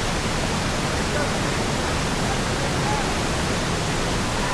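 Waterfall pouring into a pool below, a steady, unbroken rush of water.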